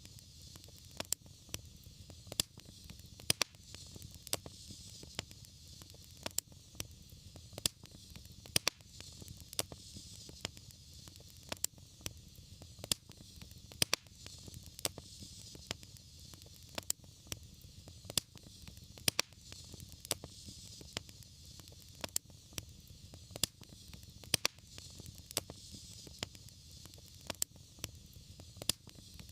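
Wood fire crackling: sharp, irregular pops and snaps over a steady low rumble and a soft hiss.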